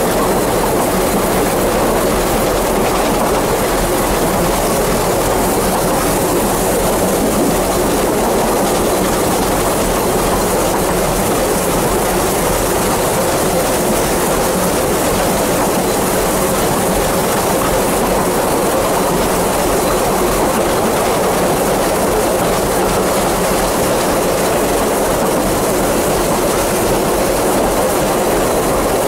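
Narrow-gauge steam train heard from on board a carriage while running: a steady, continuous noise of wheels on rail and the moving carriage.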